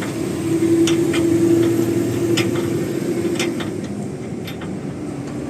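Vehicle engine running with a steady hum, louder in the first few seconds and easing off after, with a few scattered sharp clicks.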